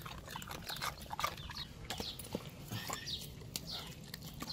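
Siberian husky biting and chewing watermelon rind, a run of irregular crunches and smacks.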